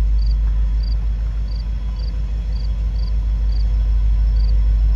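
Norfolk Southern diesel freight locomotive approaching at a crawl, its engine giving a steady low rumble. An insect chirps over it at an even pace, about twice a second.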